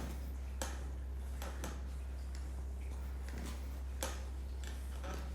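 Scattered soft clicks at irregular intervals, about ten of them, over a steady low hum.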